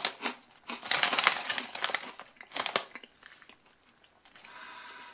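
Foil-lined crisp bag crinkling as it is handled, in several bursts over the first three seconds, then quieter.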